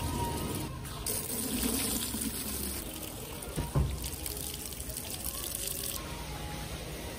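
A stream of water pouring into a plastic wash bucket, filling it and whipping the car shampoo into foam. The steady splashing hiss starts about a second in, with a single thump about halfway through.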